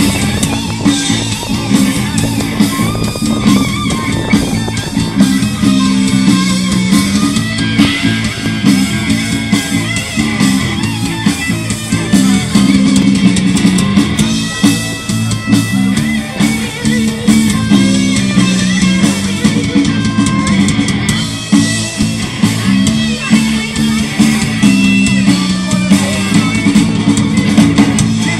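Loud rock music from a band, with guitar and a drum kit.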